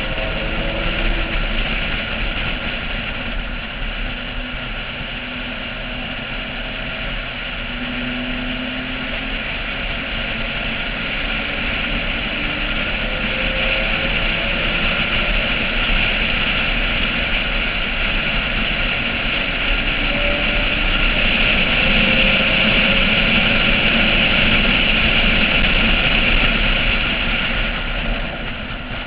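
Wind rush over a roof-mounted action camera on a Porsche 996 at track speed, with the car's flat-six engine running beneath it, its pitch gliding up and down. The loudness builds slowly through most of the stretch and eases off near the end.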